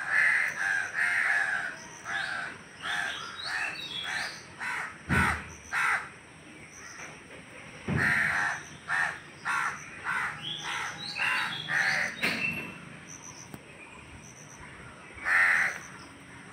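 Crows cawing in a long run of short, harsh calls, pausing and starting again. Two low thumps come about five and eight seconds in.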